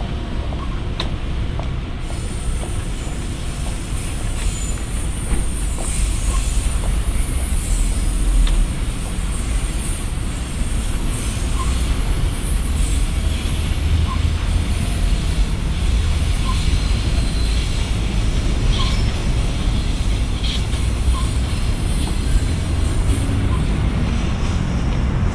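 Freight train of container wagons rolling past: a steady low rumble of wheels on rail, with a thin high-pitched wheel squeal over it.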